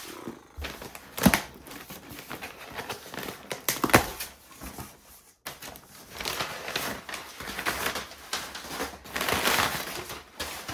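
A cardboard shipping box being torn open, with two sharp cracks from the flaps and tape about one and four seconds in. After that, crumpled kraft packing paper rustles and crinkles as hands dig through it.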